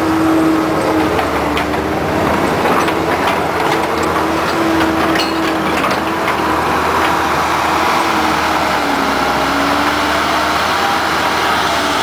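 Case compact track loader (skid steer) working hard at high revs, its diesel engine and drive giving a loud, steady whine that dips slightly in pitch about nine seconds in, with occasional clanks from the machine and its tracks.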